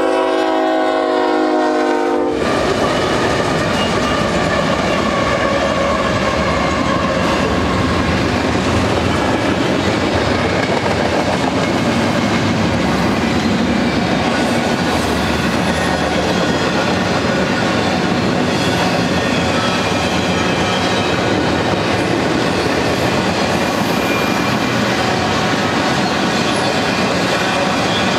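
A BNSF freight locomotive's air horn sounds a chord of several notes and cuts off about two seconds in. A double-stack intermodal freight train then rolls past, with a steady rumble and clatter of steel wheels on rail.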